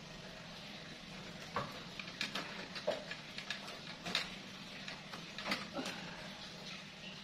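Scattered small knocks and short creaks of a wooden step stool as a person climbs onto it and reaches overhead, over a steady low hum.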